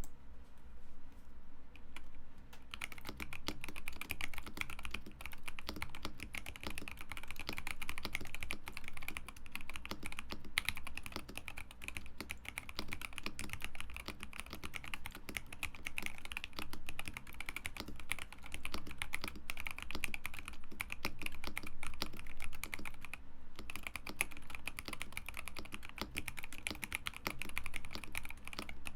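Typing on a KBD67 Lite R3 mechanical keyboard with factory-lubed Alpaca linear switches, a polycarbonate plate and PBT keycaps: a fast, continuous run of keystrokes. The strokes are sparse for the first couple of seconds and pause briefly about three-quarters of the way through.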